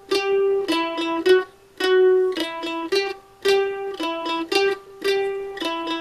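F-style mandolin played solo: an instrumental passage of picked notes, the same short phrase coming round about every one and a half seconds.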